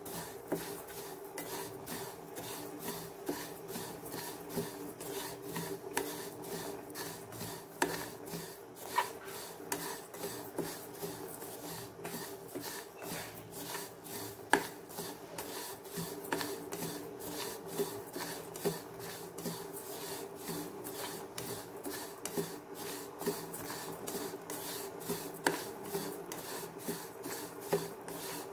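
Black sesame seeds being stirred and scraped around a pan as they dry-roast: quick, repeated rasping strokes of a spatula against the pan and seeds, with a steady hum underneath.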